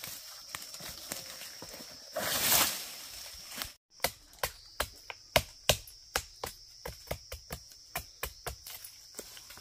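A rapid, regular run of sharp knocks, about three to four a second, begins about four seconds in, after a short rustling burst. A faint steady high tone sounds underneath.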